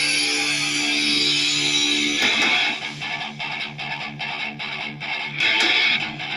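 Guitar-led music played back through a Coustic CA 333 mini amplifier driving a small unbranded speaker box and computer speakers. Held chords for about two seconds give way to a choppy rhythm of short notes, about three a second.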